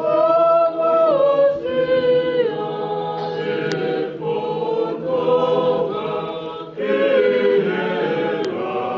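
A group of Tongan voices singing a hymn unaccompanied in several-part harmony, with long held notes and slides down between them and a short break about two-thirds of the way through.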